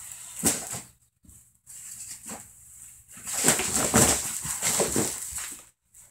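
A man straining and grunting in bursts while heaving a heavy sandbag up from the floor, a short burst about half a second in and a longer, louder one from about three seconds in.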